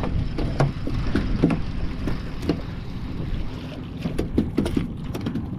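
Wind rumbling on the microphone and water sloshing around a small open boat, with a few light clicks and knocks scattered through.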